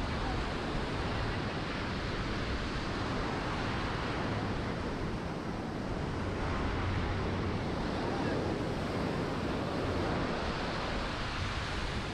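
Ocean surf washing onto a sandy beach, a steady rushing noise, with wind rumbling on the microphone.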